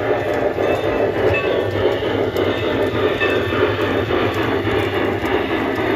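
G-scale model steam locomotive running along the track close by, a steady, unbroken mechanical noise from its drive and wheels on the rails.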